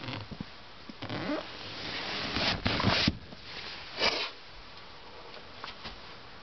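Handling noise of rubbing and scraping that builds over a couple of seconds and ends in two sharp knocks, followed a second later by one short scrape.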